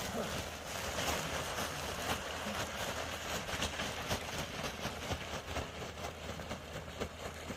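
Steady rushing background noise with a low hum underneath and faint scattered ticks; no burp or voice.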